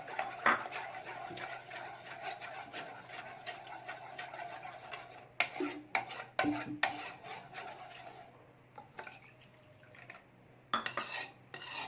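A spoon stirring gram-flour batter in a bowl as water is added, with a steady swishing for the first few seconds, then several sharp clinks of the spoon against the bowl midway and again near the end.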